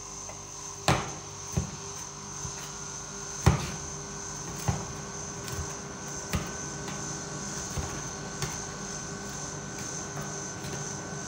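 Metal spatula blades chopping pizza on a steel ice-cream-roll cold plate: irregular sharp clacks of steel on steel, the hardest about a second in and again about three and a half seconds in, then lighter taps. A steady hum runs underneath.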